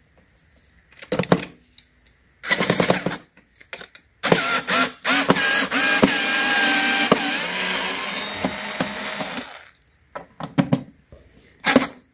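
Small cordless screwdriver whirring as it backs out Phillips screws from an eBike's plastic frame cover. First comes a short burst, then a longer run of about five seconds whose pitch shifts as it goes, then a few clicks near the end.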